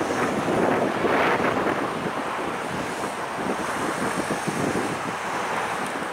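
SM42 diesel-electric shunting locomotive rolling in slowly, its diesel engine running, under heavy wind noise on the microphone that is gustier in the first second or so.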